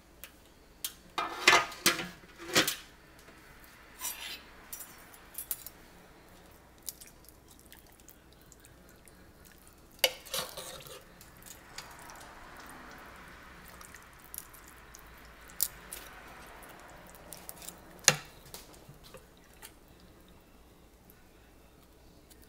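Metal serving utensil clanking and scraping against the pot of a Ninja cooker as saucy pulled pork is dished out. There is a cluster of loud clanks in the first few seconds, scattered knocks after, a softer rustling stretch in the middle, and one sharp clank about 18 seconds in.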